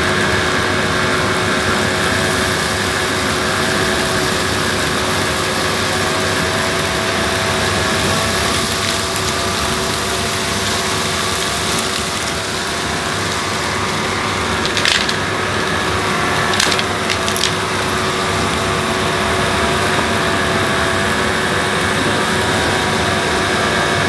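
Numatic Henry Hound HHR 200 vacuum cleaner running steadily with its turbo electric power head, the brushroll sweeping over carpet covered in dirt and clumps. A few brief rattles of debris being sucked up come about fifteen and seventeen seconds in.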